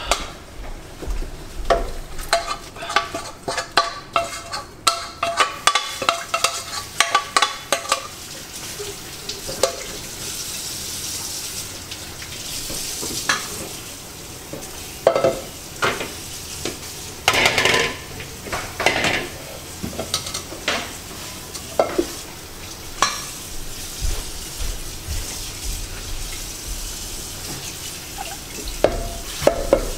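Quick run of metal taps and scrapes with a short ringing tone, a utensil knocking against a bowl and the rim of a large aluminium stockpot as sautéed aromatics are emptied into the broth. This is followed by a steady hiss from the pot on the gas burner, broken by scattered clanks.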